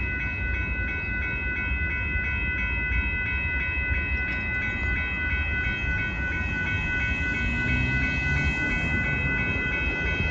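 A Union Pacific freight train of hopper cars rolls past with a steady low rumble. Over it, the grade-crossing warning bell rings in a rapid, even rhythm throughout. Near the end a car drives over the crossing.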